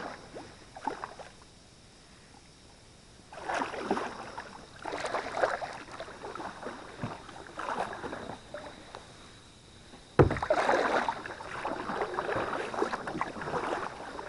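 Water sloshing and lapping around a kayak in irregular bursts, with one sharp knock about ten seconds in.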